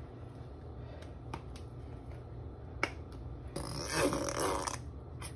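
Squeeze bottle of yellow mustard squirted onto potato salad in a glass bowl: one noisy squirt of about a second, a little over halfway in, with a few light clicks before it.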